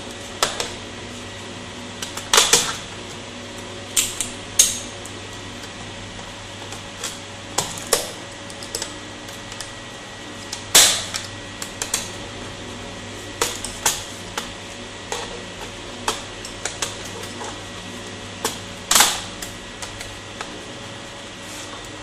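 Plastic bottom cover panel of a Dell Inspiron 5520 laptop being pressed back into place by hand: irregular clicks and snaps as the panel's clips seat, with a few louder snaps spread through.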